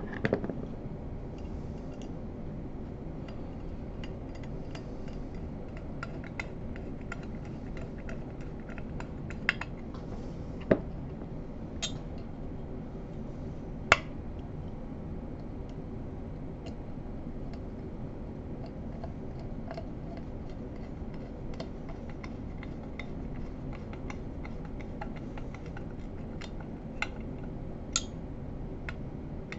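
Scattered small clicks and clinks of a screwdriver and metal parts against a Bausch & Lomb StereoZoom 7 microscope housing as its screws are driven back in, a few of them sharper, over a steady low hum.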